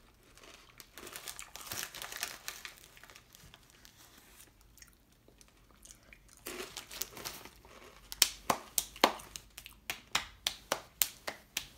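Crinkling of a chip bag and crunching of Fritos Honey BBQ Twists being chewed, then, in the last few seconds, a run of sharp, evenly spaced clicks, about three a second.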